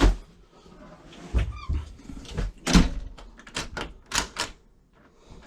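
A door lock being tested: the knob and latch worked and the door swung and shut, giving a series of clicks and knocks, the loudest about three seconds in, with a brief squeak about one and a half seconds in. The latch is catching a little on the wood of the door frame.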